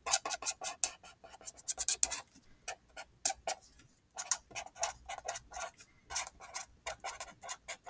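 Red felt-tip marker writing on paper: a string of short, quick scratchy strokes and taps as a circle, an arrow and two words are drawn, with a couple of brief pauses.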